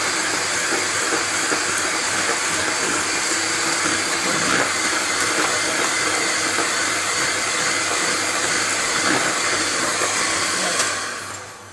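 Electric hand mixer running steadily, its beaters whirring through cake batter in a plastic bowl; it is switched off and winds down near the end.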